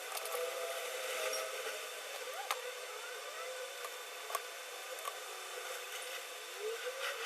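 Steady hiss of a hot-air gun shrinking heat-shrink tubing over a cable's solder joint, with a few sharp clicks of handling, played fast-forward.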